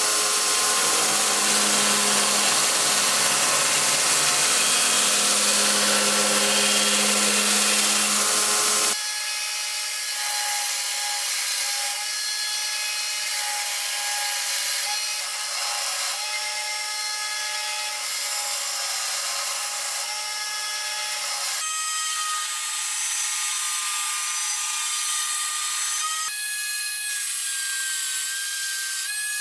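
Belt grinder running with a forged O1 tool-steel blade pressed against the abrasive belt, grinding steel. A louder, fuller grind gives way abruptly about nine seconds in to a thinner, higher whine with steady tones, and the sound shifts suddenly twice more later on.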